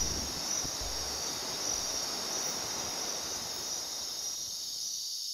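A steady, high-pitched chorus of nocturnal tropical-rainforest insects, over a rushing-water hiss from a river. The rushing stops abruptly about five seconds in, and the insect chorus carries on.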